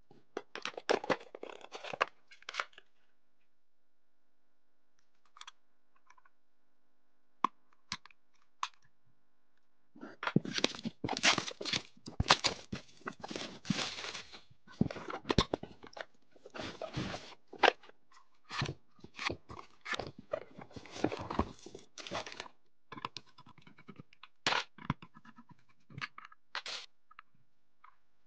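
Product packaging being opened by hand: plastic and paper crinkling and tearing, densest through the middle, with scattered sharp clicks near the start and end.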